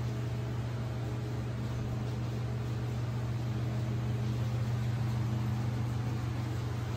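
Steady low machinery hum with a faint even hiss of air, like ventilation running in an enclosed steel compartment of a museum submarine.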